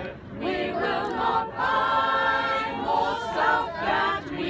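Unaccompanied choir of men's and women's voices singing together, holding a long chord about two seconds in.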